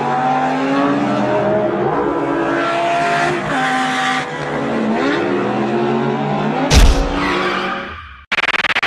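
Car engine revving and tyre squeal sound effects, the engine pitch rising and falling, with a loud sudden thud about two-thirds of the way in. The engine fades out near the end and a fast run of clicks starts just before it ends.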